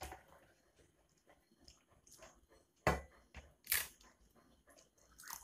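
Eating by hand: a few sharp crunches and clicks, the loudest about three seconds in and another just under a second later, as a crisp papad is broken and bitten over a steel plate.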